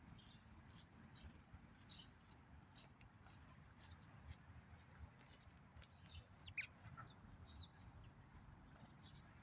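Birds chirping faintly with many short, high calls, and two louder falling calls about two-thirds of the way through.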